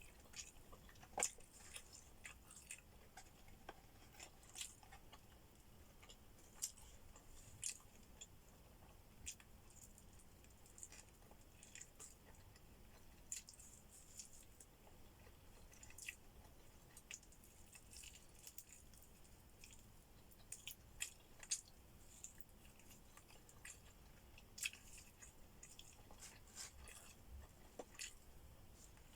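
Faint mouth sounds of someone eating: chewing, with soft, irregular clicks and smacks every second or so.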